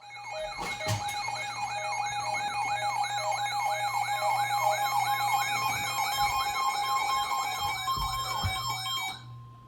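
Electronic alert siren of a weather-radio alert receiver going off for a Special Marine Warning: a fast, repeated rising yelp, about three a second, over steady electronic tones. It cuts off about nine seconds in, leaving a single steady tone.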